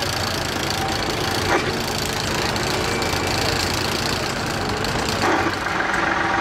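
Vintage Ford and Fordson tractor engines running steadily as the tractors drive slowly past, with a couple of brief louder sounds about a second and a half in and near the end.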